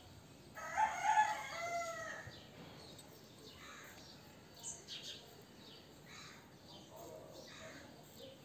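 A rooster crows once near the start, a single pitched call lasting about a second and a half, followed by fainter short sounds.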